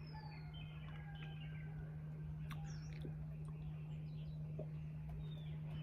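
Faint bird chirps, short whistled notes and a few falling glides, over a steady low hum.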